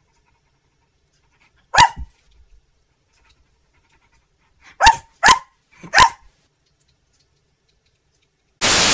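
Four short barks: one about two seconds in, then three in quick succession around five to six seconds in. A short burst of loud hiss right at the end.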